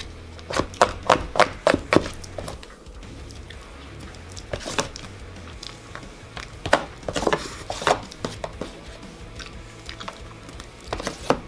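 Metal spoon scraping and clicking in a foil pan of pudding-and-cookie dirt dessert, in quick clusters of sharp clicks about a second in, again midway and near the end, with chewing between. Background music plays underneath.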